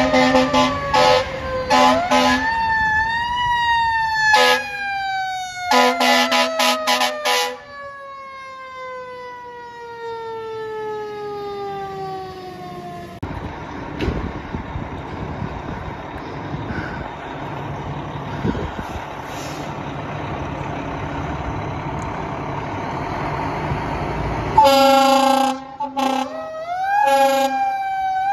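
Fire truck air horns blasting in several bursts while a siren winds up and then slowly winds down over many seconds. A steady rumble follows, then the air horns blast again and the siren starts winding up near the end.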